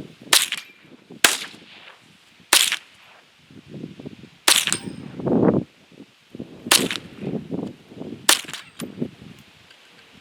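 Rimfire rifle firing six single shots at an unhurried, uneven pace, each a sharp crack about one to two seconds apart.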